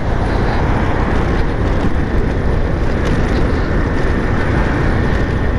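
Italika DS 150 motor scooter under way: a steady, loud rush of wind and riding noise with the scooter's engine running.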